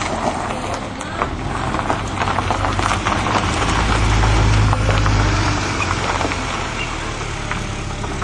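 A vehicle driving on a dirt track: engine running under a steady rumble of tyres and road noise, with many small clicks and rattles. The engine grows louder about four to five seconds in, then eases off.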